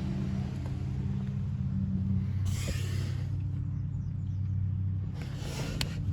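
Steady low engine-like hum, as of a vehicle idling, with two short hisses about two and a half and five seconds in.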